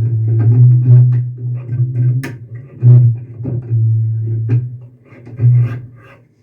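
Restored upright double bass, strung with tabla leather straps in place of bass strings, being plucked in a run of low notes, with sharp string clicks about two and four and a half seconds in. The owner finds the action too high and the intonation poor.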